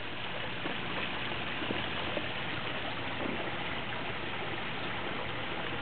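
Steady rushing, trickling water noise with no breaks, like water circulating in a backyard swimming pool.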